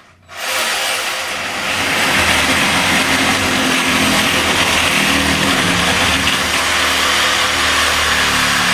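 Battery-powered cutting tool running steadily as it cuts along the edge of bathroom wallboard, starting about a third of a second in.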